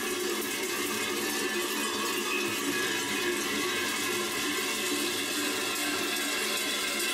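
Many large cowbells hung from the belts of a group of kurenti (sheepskin-clad Slovenian carnival figures) ringing together continuously as they walk and hop, a dense, unbroken clanging with no gaps.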